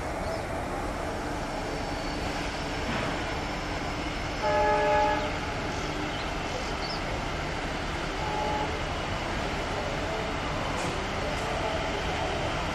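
WAM-4 AC electric locomotive hauling a passenger train at slow speed, with a steady rumble of the running locomotive and wheels. It sounds its horn once, about a second long, partway through.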